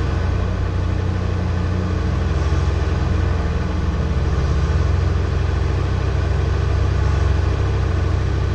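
Off-road vehicle's engine running at steady low revs as it crawls along a rough dirt forest track.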